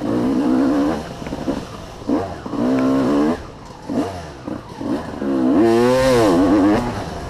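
Dirt bike engine revving hard in repeated throttle bursts, rising in pitch with each pull and dropping as the throttle closes: one burst at the start, another about two to three seconds in, a few short blips, then the longest, wavering climb near the end.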